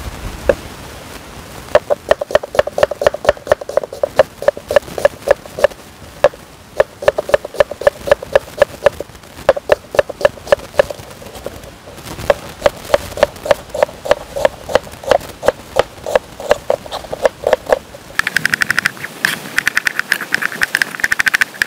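Chef's knife chopping onion on a plastic cutting board: quick knife strikes on the board in runs broken by a few short pauses, quickening into a faster, brighter rattle near the end as the onion is diced fine.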